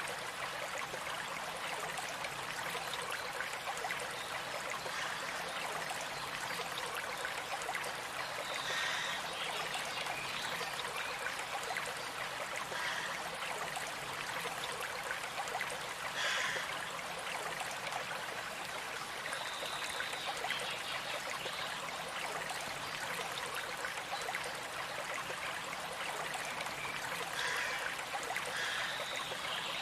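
Running water of a stream flowing steadily, with a few short bird calls heard now and then above it.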